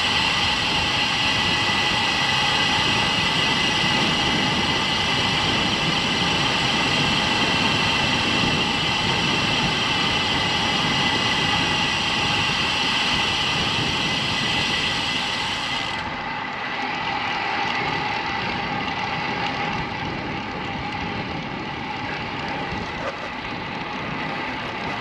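Steady wind rush over the microphone of a bicycle-mounted action camera while riding a road bike, with tyre noise beneath. It turns duller and a little quieter after about sixteen seconds.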